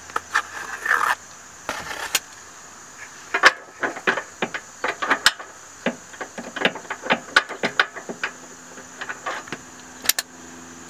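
Irregular metallic clinks, clicks and clanks of hand tools and bolts being worked while a bolt-on brace is fitted under a car, over a steady electrical hum.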